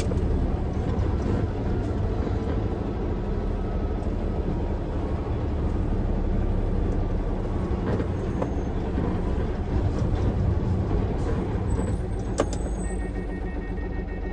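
Hino Profia tractor unit's diesel engine running at low speed with road rumble, heard inside the cab. A single sharp click about twelve seconds in, then faint intermittent high beeps near the end.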